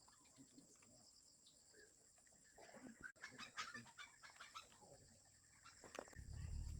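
Faint chickens clucking in short scattered calls, busiest around the middle, over a steady high whine; a low rumble comes in near the end.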